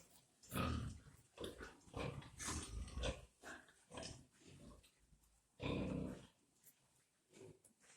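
Pigs grunting in short, irregular bursts, with a longer grunt just before the last couple of seconds.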